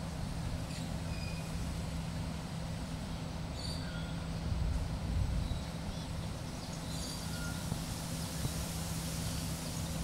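Steady low mechanical hum and rumble with a constant pitch throughout, with a few short, faint bird chirps over it.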